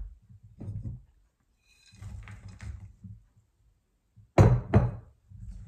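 Faint handling sounds at a mixing bowl, then two sharp clatters of a plate on the kitchen counter about a third of a second apart.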